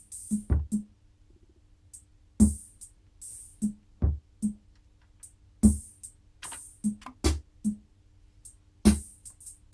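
Roland CR-78 CompuRhythm analogue drum machine playing a sparse rhythm through an audio system: low electronic drum thumps and short hissy cymbal ticks, unevenly spaced. A faint steady hum runs underneath.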